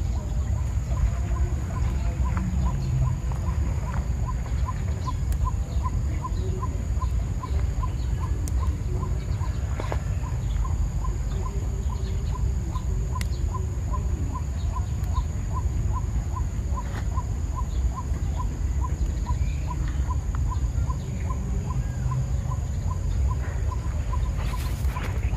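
Outdoor rural ambience: an animal calling in a regular pulse, about three times a second, over a steady low rumble.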